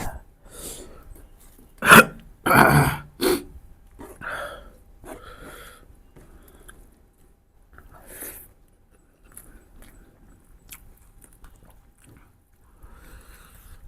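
A person eating mutton ribs close to the microphone: chewing, biting and mouth smacks, with the loudest bites about two to three seconds in and smaller smacks and clicks after.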